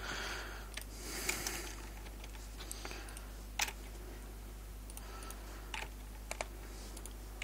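Sparse, irregular computer keystrokes and clicks while text is being edited, each a short sharp tap, over a faint steady low hum.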